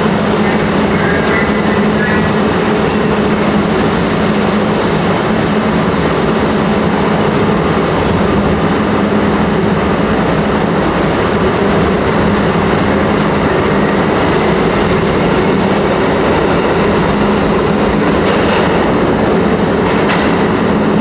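R32 subway train running on the track: a loud, steady rumble of wheels and motors with a constant hum underneath.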